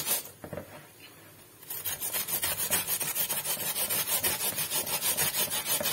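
A raw potato being grated by hand on a flat metal grater: quick, regular scraping strokes, which pause for about a second and a half near the start.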